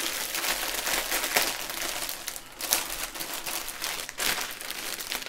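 Clear plastic wrapping crinkling as hands open it and shift strands of small heat-sealed plastic bags of diamond-painting drills, a run of irregular crackles.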